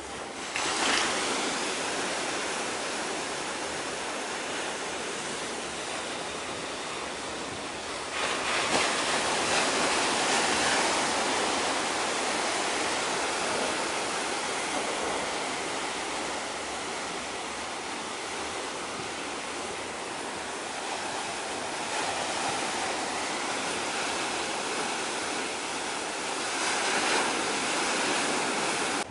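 Steady rushing hiss of waves washing on the shore, swelling louder about a second in, again around eight to eleven seconds in, and briefly near the end.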